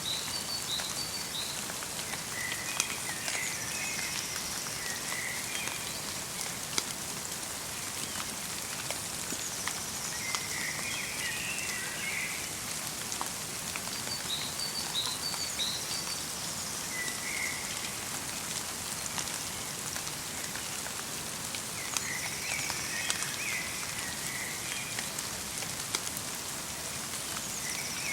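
Light rain pattering steadily in a forest, with occasional sharper drips. Small birds call at intervals over it: short bursts of twittering notes every few seconds.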